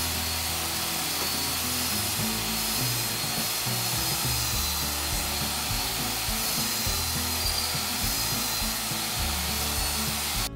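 Benchtop drill press running steadily while its bit is plunged again and again into a wooden rail, boring a row of small holes.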